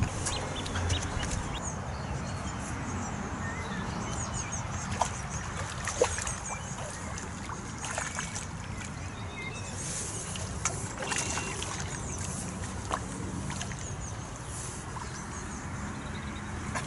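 Wind on the microphone and birds chirping by a lake, with small water splashes and a few sharp clicks while a hooked tench is played in at the bank.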